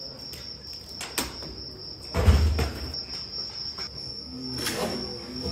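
Metal bucket scooping hot cooked rice inside a giant metal cauldron: scrapes and a heavy knock about two seconds in, and another clatter near the end, over a steady high-pitched tone.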